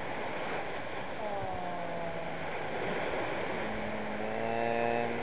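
Surf washing on a beach, with a steady low droning tone held for a couple of seconds, then again at a lower pitch near the end.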